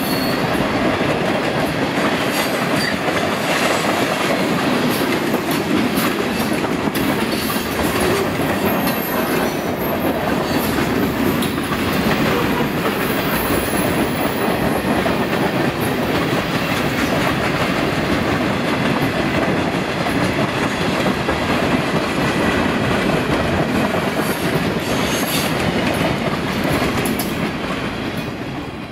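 Freight train of tank cars and a boxcar rolling past at trackside: a steady rumble and rattle of steel wheels on the rail, with clicks as the wheels cross rail joints. The sound fades near the end as the last car goes by.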